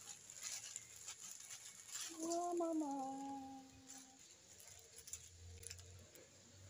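Plastic instant-noodle packet crinkling and rustling as it is torn open and its dried noodle blocks are shaken out into a wok of hot water, a run of short crackles in the first two seconds. A voice drawn out on the word "Mama" through the middle is the loudest sound.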